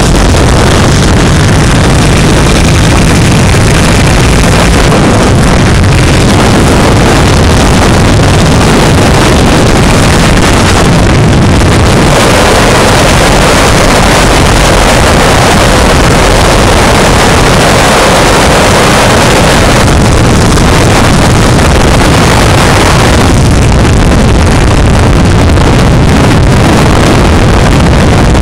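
Harley-Davidson Iron 883's air-cooled V-twin engine running at road speed, loud and buried under heavy wind rush on the microphone. The wind noise swells for several seconds around the middle.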